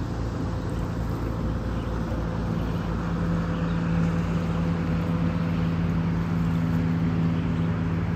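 Distant motorboat running across a lake: a steady engine hum that grows louder about halfway through.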